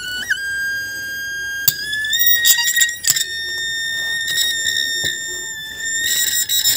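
Hard-drive brushless spindle motor, driven without its controller, giving a steady high-pitched electrical whine. The pitch steps up a little about two seconds in and drops back near the end, with scratchy rubs and taps from fingers on the spindle hub and platter.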